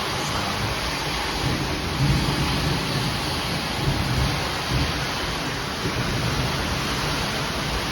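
Heavy rain pouring down in a strong storm: a steady rushing noise with an uneven low rumble underneath.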